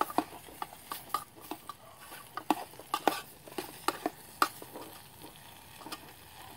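Metal spoon stirring and scraping diced SPAM in a metal canteen cup, with irregular clinks against the cup over the steady sizzle of the meat frying. The clinks come thick and fast for the first four and a half seconds, then thin out.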